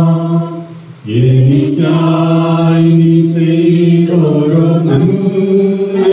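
A group of voices chanting in unison, holding long steady notes, with a short break for breath about a second in before the next phrase.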